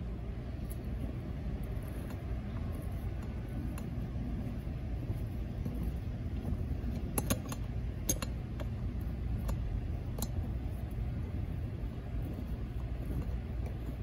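A steady low rumble, with a few light clicks a little past the middle, as small engine parts are handled and the trimmer's intake manifold block is fitted onto its new gasket.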